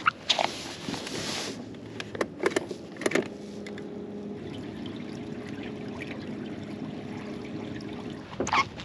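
Knocks and rustling from fishing gear handled on a pontoon boat's deck, then a steady low hum that sets in about three seconds in and stops shortly before the end.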